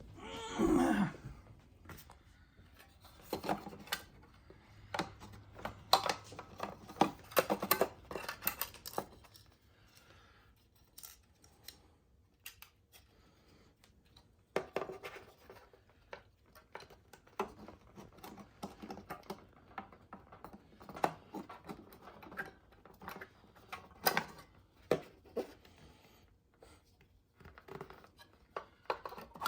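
Plastic dispenser parts of a refrigerator being handled and fitted back together by hand: scattered clicks, scrapes and rattles at an uneven pace, with a short falling tone right at the start.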